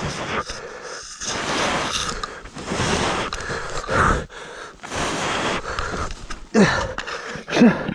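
Heavy breathing in a run of loud, noisy breaths, with a few short falling voiced sounds near the end.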